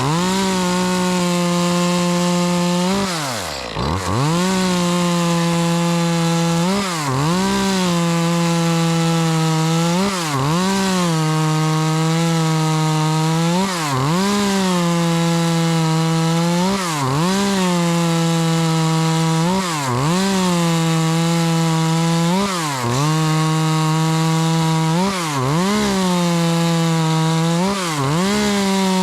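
Echo CS-2511T two-stroke top-handle chainsaw running at high revs while cutting wood. Its pitch dips and recovers about every three seconds as the chain loads in the cut, the deepest drop a few seconds in.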